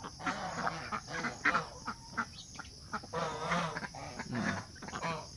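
A flock of white Pekin ducks quacking: many short calls overlapping one another in quick succession.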